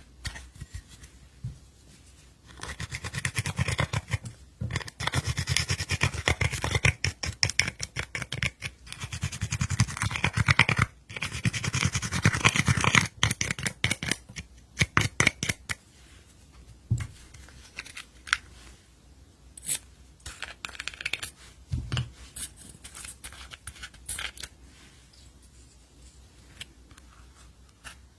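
Slime being kneaded and stretched by hand, making rapid sticky clicking and crackling pops that are dense through the first half and become sparse, scattered clicks after that.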